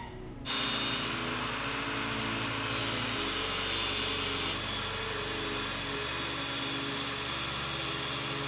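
Power tool running steadily, putting a Scotch-Brite finish on a titanium exhaust tip. It starts suddenly about half a second in.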